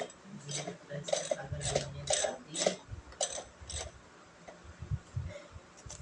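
Small metal objects clinking and clattering against each other in a quick run of about a dozen light strikes, thinning out after about four seconds.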